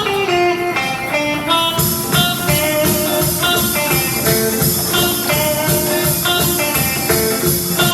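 Instrumental music: a guitar intro, with the full band and a steady beat coming in about two seconds in.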